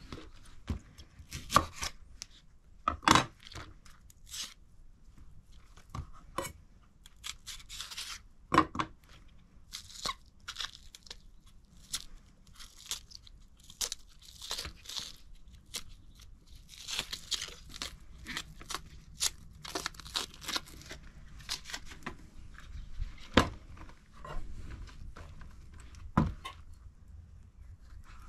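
Food-prep handling noises: irregular sharp knocks and clicks, with a long stretch of tearing and rustling through the middle. A few louder single knocks stand out.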